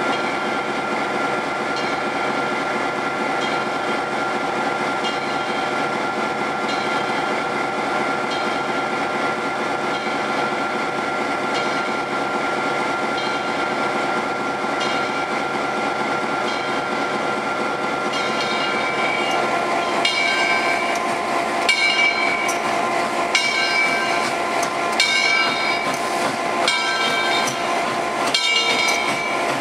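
Former Southern Railway No. 630 steam locomotive's bell ringing in repeated strokes as the train approaches. The strokes are faint at first and get much louder from about two-thirds of the way through, over a steady hiss.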